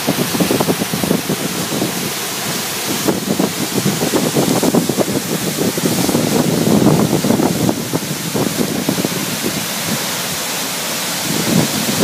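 Steady rushing of a large waterfall: the Indravati River plunging about 90 metres over a rock ledge at Chitrakoot Falls in several broad cascades.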